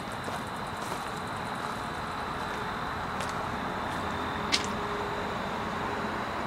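Steady hum of distant road traffic, with a thin, steady high whine over it and a single sharp click about four and a half seconds in.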